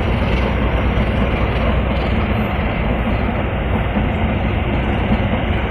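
Passenger train of coaches rolling past: a steady, even rumble of wheels on rails.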